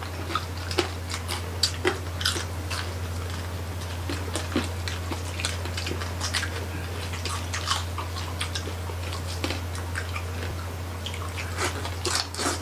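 Close-miked chewing and crunching of crispy roasted pork skin and meat (lechon) by several people eating with their hands: many short, irregular crackles and wet chewing sounds. A steady low hum runs underneath.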